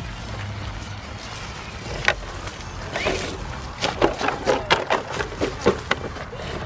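Dry leaf litter crunching and crackling underfoot in a quick, irregular run of sharp crackles that grows denser and louder about four to six seconds in.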